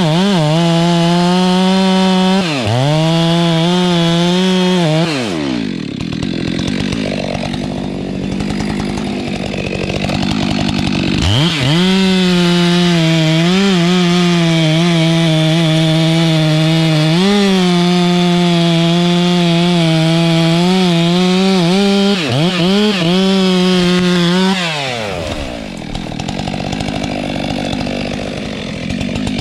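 Stihl MS 462 two-stroke chainsaw running at full throttle, its pitch sagging and recovering as the chain takes load in the wood. It drops to idle about five seconds in, revs back up about eleven seconds in, and falls back to idle near the end.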